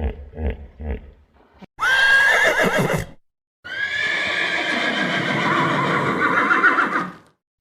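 A horse whinnying twice, a short call and then a long wavering one, after a few short low sounds.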